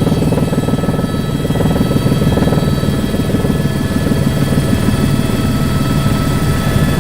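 Helicopter running steadily: a fast, even rotor chop with several steady high whining tones over it.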